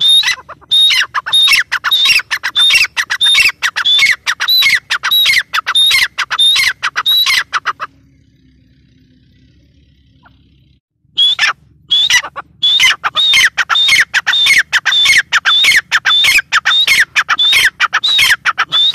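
Grey francolin (teetar) calling: a rapid run of loud, shrill repeated notes, each dropping in pitch. The calling breaks off for about three seconds near the middle, then resumes.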